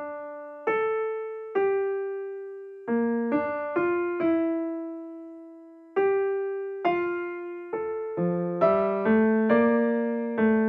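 Background music: a slow solo keyboard melody, piano-like notes struck one at a time and left to ring out, with one long-held note in the middle and lower notes joining in, more densely, near the end.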